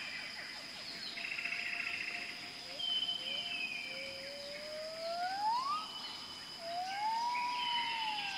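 Forest ambience: short bird chirps over a steady high insect whine, with two long whistled animal calls in the second half, the first rising in pitch, the second rising and then falling.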